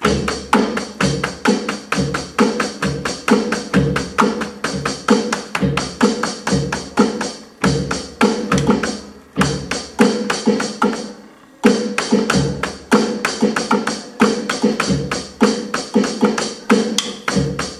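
Drum and percussion strokes in a fast, steady beat, several hits a second, with a short break a little past the middle before the beat carries on.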